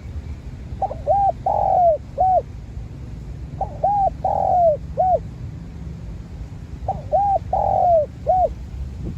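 Spotted dove cooing: three phrases about three seconds apart, each a few short rounded coos with a longer falling note in the middle, over a steady low rumble.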